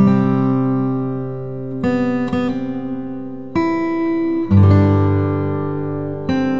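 Background music: an acoustic guitar playing a slow run of chords, each struck and left to ring out, a new one about every second or two.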